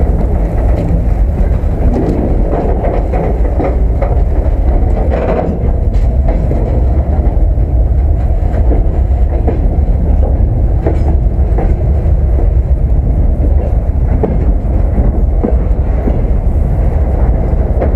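Freight train rolling, heard from on board a wagon: a steady, loud, heavy low rumble with rattling and a few sharp knocks from the car.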